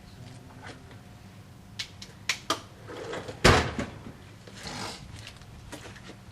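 Metal tools and parts being handled: a few sharp clinks, then one loud clank about three and a half seconds in, followed by a brief scraping rustle.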